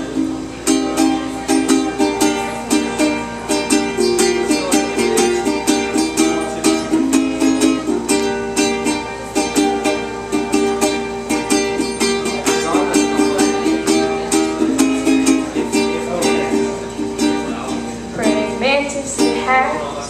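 Solo ukulele strummed in quick, steady chords through an instrumental break in a live song.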